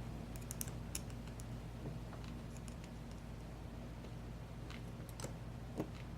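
Small metal tool clicking and scraping against the C-clip and lock body of an American 5100 padlock while prying the clip off the cylinder, as scattered faint clicks over a steady low hum.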